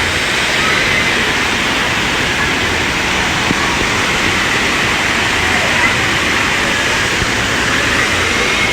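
Steady, loud rush of falling or flowing water, with faint voices in it.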